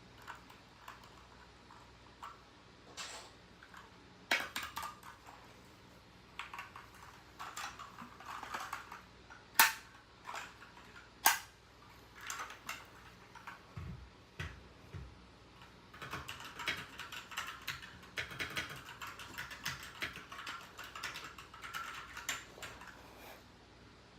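Keys of a DIERYA DK68SE mechanical keyboard being pressed. At first the presses are scattered, with two sharp, louder clacks near the middle. A few low thumps follow, then fast, continuous typing for most of the last eight seconds.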